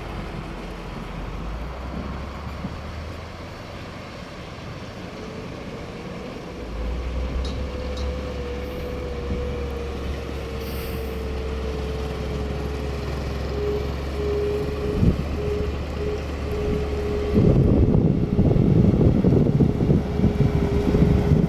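Motor grader's diesel engine running, with a steady whine joining it about five seconds in and sinking slightly in pitch. The engine gets louder and rougher from about seventeen seconds in, as if working harder.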